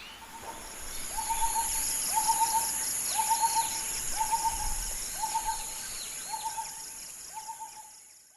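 A bird's hooting call, one short note repeated about once a second, seven times, over a steady high-pitched drone with fainter higher chirping calls. The sound fades out toward the end.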